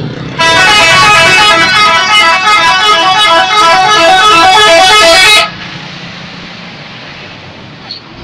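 Indonesian 'telolet' bus horn, a set of several pitched horns, playing a quick tune of changing notes for about five seconds, then stopping suddenly, leaving steady road noise.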